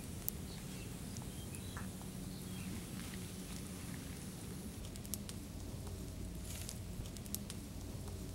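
Small fire of dry twigs catching and crackling, with scattered sharp pops that come more often in the second half.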